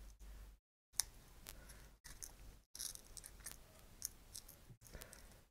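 Faint crackling and sharp little clicks as a small metal tool scrapes and pries at the brittle glass hot-mirror filter of a camera sensor assembly, pieces of the split filter cracking and breaking away. There are about half a dozen distinct clicks.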